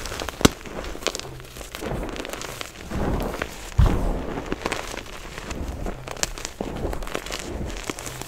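Hands squeezing and raking through a tray of crushed gym chalk powder: soft, irregular crunching and crackling with small sharp clicks, and one dull thump about four seconds in.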